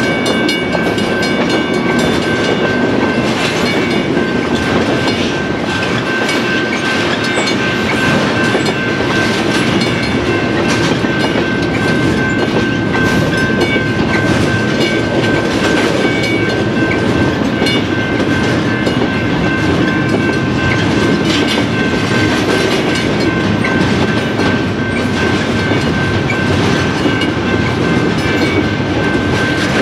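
Double-stack intermodal freight cars rolling past: a steady rumble of steel wheels on rail with irregular clicks and clacks, and a thin steady high tone over it.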